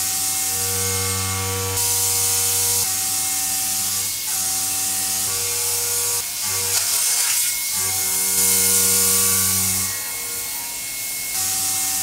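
DN Solutions DVF 5000 5-axis CNC mill cutting a metal block with a spinning end mill: a steady whine of several pitches under a high hiss of coolant spray and cutting. The whine shifts to a new set of pitches every second or two.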